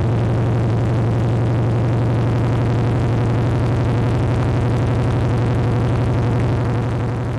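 Harley-Davidson Milwaukee-Eight 114 V-twin idling steadily just after start-up through Vance & Hines Mini Grenades 2-into-2 exhaust with the standard baffles: a loud, deep low-end growl. The level eases off slightly near the end.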